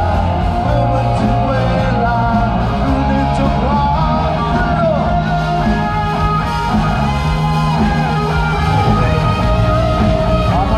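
Rock music with a singing voice and guitar, playing steadily.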